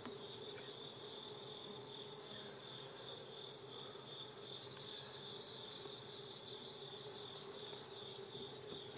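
Steady insect sound: an even, high-pitched chirring of crickets over a low, steady hum of honeybees around the opened hive.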